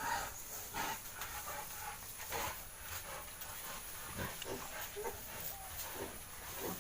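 Yorkshire sow and her newborn piglets grunting and squealing in short, irregular calls.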